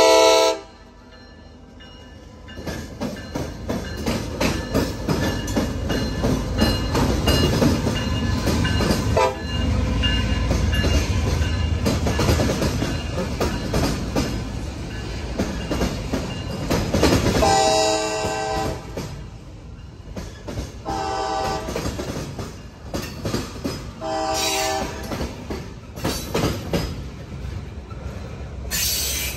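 CSX diesel freight locomotive's horn sounds a brief blast at the very start. The locomotive then passes, followed by boxcars rolling by with a steady rumble and rattling, clattering wheels. From a little past halfway the horn sounds again in a series of long and short blasts as the train moves off.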